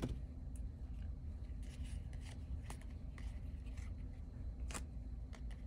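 Trading cards being handled and flipped through, with a few faint clicks and light rustles over a low steady hum.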